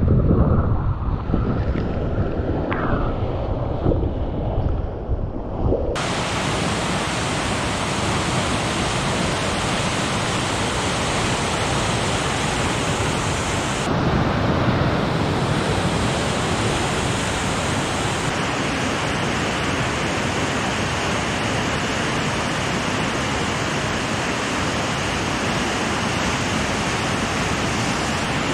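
Whitewater rapids rushing. For the first six seconds, wind buffets a camera riding on the kayak and water splashes close by. Then the sound changes abruptly to the even, steady rush of a large rapid, heard from the bank.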